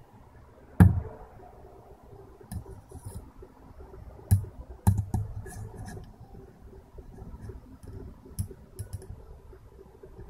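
Steel vernier caliper handled against a steel MGN15 linear rail and carriage: scattered clicks and light metal knocks as the jaws are slid and set on the rail, the loudest knock about a second in.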